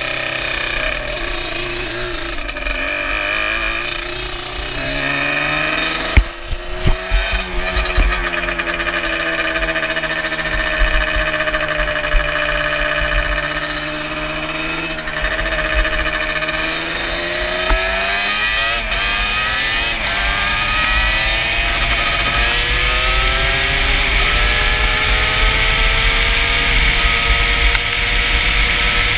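Yamaha Banshee ATV's twin-cylinder two-stroke engine running hard under way, its pitch dropping and climbing again through gear changes and then rising steadily near the end, with rushing wind. A few sharp knocks about six to seven seconds in.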